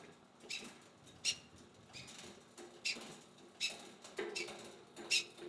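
SRAM XX Eagle AXS Transmission drivetrain being test-shifted as the cranks are turned by hand: the chain and wireless rear derailleur make sharp clicks every second or so as the chain moves across the cassette cogs.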